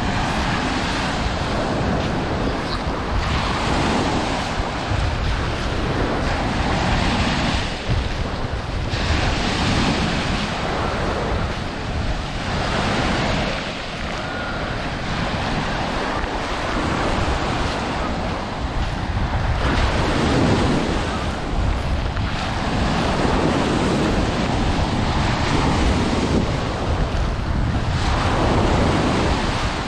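Sea surf washing onto a sandy beach, swelling and easing every few seconds, with wind buffeting the microphone.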